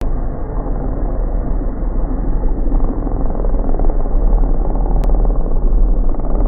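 Mitsubishi Lancer Evolution VII race car's turbocharged four-cylinder engine running loudly and steadily, with a single sharp click about five seconds in.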